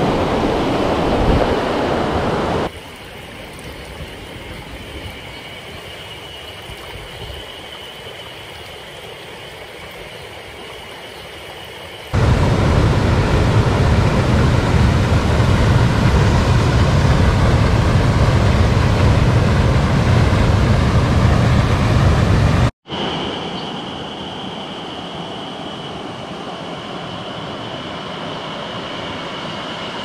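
Mountain stream water rushing over rocks, heard in several cuts: loud at first, then quieter with a steady high-pitched hum, then a louder, deeper rush that cuts off abruptly, then a quieter flow with the high hum again.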